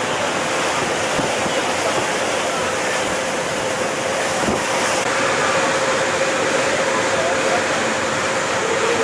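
Fast passenger jet boat under way at speed: a steady rush of water and wind with a constant engine drone.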